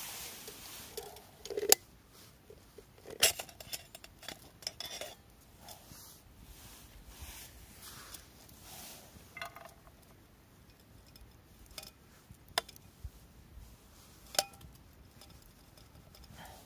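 Metal cookware clinking and knocking in irregular small handling sounds, with a few sharper clinks. One clink near the end rings briefly.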